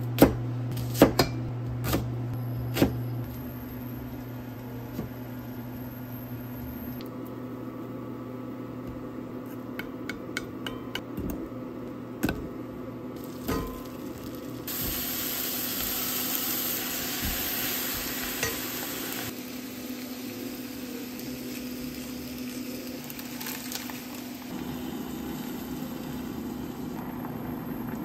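A kitchen knife chopping red potatoes on a cutting board, with several sharp knocks in the first few seconds, then onion and potato chunks sizzling in an enamelled cast-iron pot as a wooden spatula stirs them. The sizzle is loudest for a few seconds midway, over a steady low hum.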